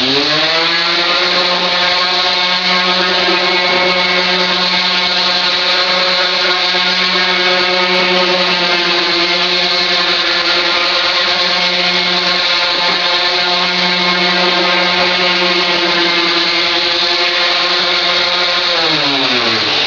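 Electric palm sander switched on, spinning up to a steady whine and running against a red oak stair tread, then slowing down near the end. It is a light scuff-sanding of a cured first coat of water-based polycrylic, to roughen it for the next coat.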